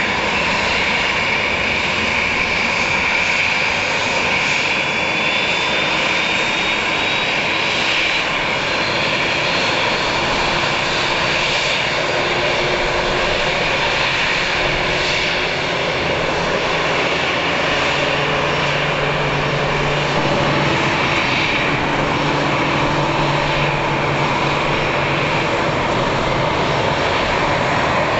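Airliner jet engines whining steadily and loud from an Airbus A319 being pushed back by a tug. A faint high whistle falls slowly in pitch over the first ten seconds, and a low hum joins for several seconds past the middle.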